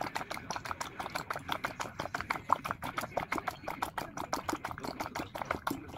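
A dog eating, its mouth making quick, even wet clicks, about eight a second.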